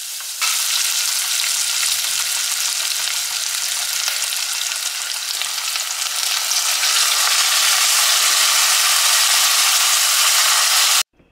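Onions and chopped tomatoes sizzling in hot oil in a soapstone kalchatti pot as the tomatoes are slid in from a wooden board. The sizzle jumps louder about half a second in, swells again a little past the middle, and cuts off suddenly near the end.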